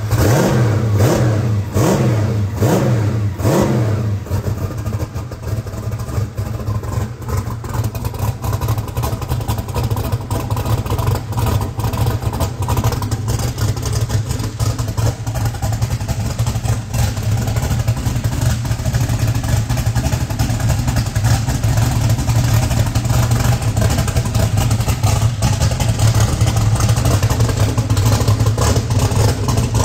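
Car engine, built by 3vPerformance, running: revved up and down a few times in the first few seconds, then settling to a steady idle.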